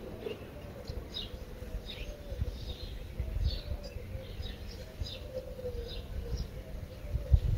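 Small birds chirping in the background: short, high, falling chirps about two or three times a second, over a faint wavering tone. An uneven low rumble sits beneath them and swells briefly around the middle and near the end.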